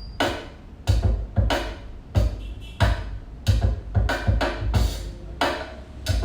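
Percussion-led music with a steady beat of deep drum hits about every half second, with lighter wood-block-like clicks and sustained notes between them.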